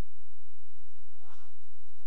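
A pause in speech, filled by a steady low electrical hum, with a brief soft noise about a second and a half in.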